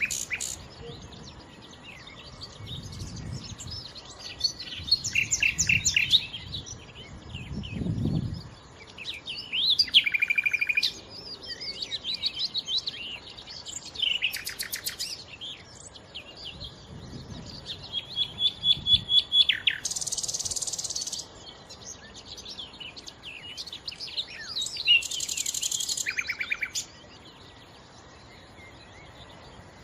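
Nightingale singing: a string of varied phrases with short pauses between them, made of rapid trills, fast repeated notes and whistles, with two harsh buzzy bursts about twenty and twenty-five seconds in. Low rumbles sound underneath now and then in the first two-thirds.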